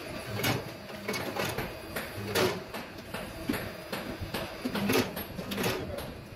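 Workshop clatter from fuel-tank fabrication: irregular knocks and taps, one or two a second and uneven in strength, over a faint steady machine hum.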